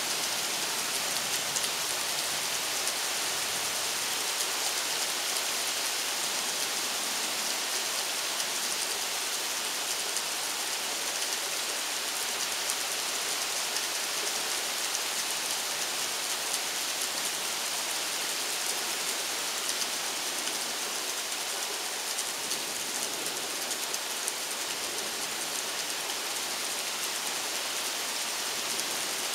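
Steady rain from a thunderstorm falling, an even hiss that doesn't let up.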